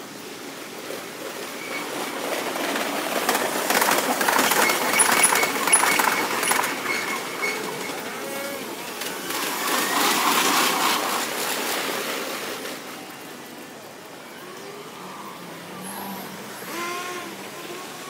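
Electric trains passing on the track, heard at five times normal speed, so the wheel clatter runs together into a fast rattle with thin high whines. The sound swells twice: loudest about four to six seconds in, then again around ten seconds.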